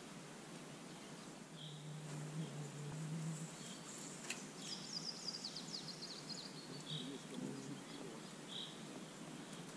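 Quiet outdoor ambience with a songbird repeating a short high note every couple of seconds over steady background hiss. A quick run of high ticks comes about four to five seconds in.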